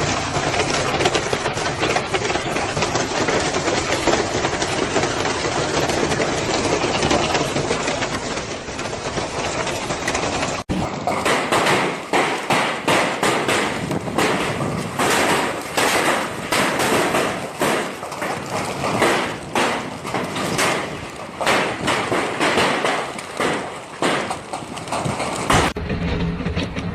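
Heavy hail pelting down in a dense, steady clatter. After a cut about ten seconds in, hailstones strike a hard surface in loud, irregular knocks, a few a second.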